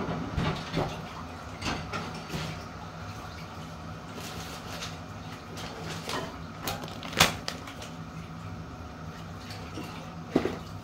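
Kitchen clatter: scattered knocks and clicks of dishes and cupboards being handled over a steady low hum. The sharpest knock comes about seven seconds in, another just before the end.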